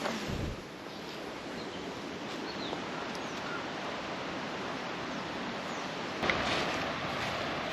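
Steady rushing noise of flowing river water with a few faint bird chirps; a knock about six seconds in, after which the noise is louder.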